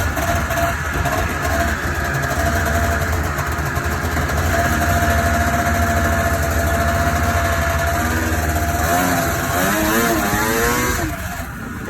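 Vintage Ski-Doo Blizzard RV snowmobile's two-stroke engine running at a steady speed, then rising and falling in pitch several times as the throttle is worked, before dropping off near the end.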